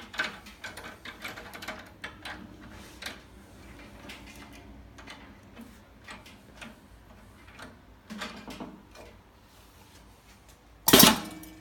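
Light metallic clicks and rattles of a coil-binding crimper and a spiral-bound book being handled and positioned, then one loud sharp clack near the end as the crimper closes, cutting and crimping the end of the spiral coil.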